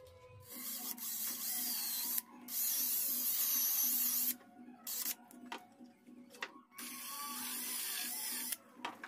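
Handheld power drill boring into wood in several bursts: three runs of about two seconds each and one short blip, the motor whine wavering as the bit cuts, with brief pauses between. Faint background music underneath.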